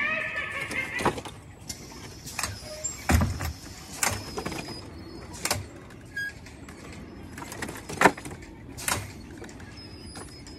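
Halloween yard-haunt props and sound effects: a short wavering cry right at the start, then irregularly spaced sharp hisses and knocks, the loudest about eight seconds in.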